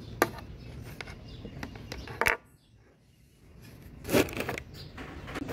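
A few short, sharp clicks and light scraping from multimeter test probes being handled and touched against component leads, with a louder cluster of clicks and rustling about four seconds in.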